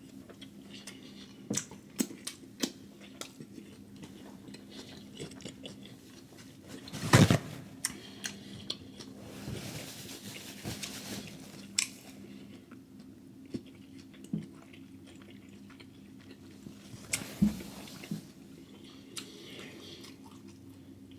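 Close-up mouth sounds of eating a seafood boil: wet chewing and smacking with scattered crunches and clicks. A louder knock comes about seven seconds in and another about seventeen seconds in, with a short hissy stretch around ten seconds.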